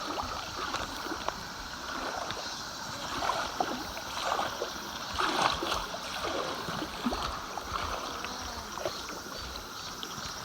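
Mountain stream flowing, a steady rush of water with scattered small splashes and clicks.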